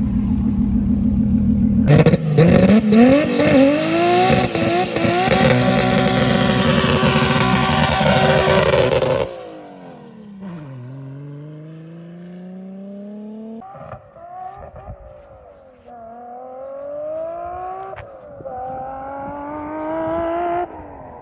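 1989 Nissan Laurel C33 doing a burnout: the engine idles, then about two seconds in it revs hard with its pitch climbing while the tyres squeal for about seven seconds. After that the engine is quieter, rising in pitch through four or five gear changes as the car accelerates away.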